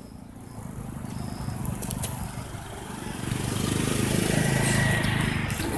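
An engine running steadily with a low hum, getting louder about three seconds in.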